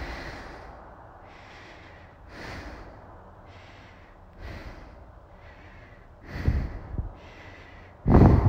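A woman's heavy, rapid breathing, close to the microphone, with a breath swelling about once a second. About six seconds in and again near the end, louder rumbling blasts of air hit the microphone.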